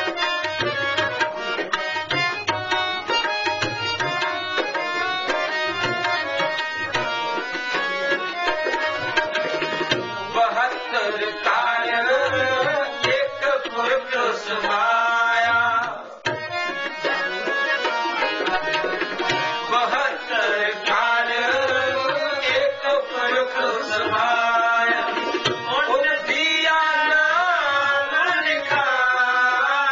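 Sikh shabad kirtan with harmoniums and tabla. The tabla plays a dense run of strokes with deep bass-drum thumps over the sustained harmonium chords. From about eleven seconds in, a voice sings gliding, ornamented lines over them.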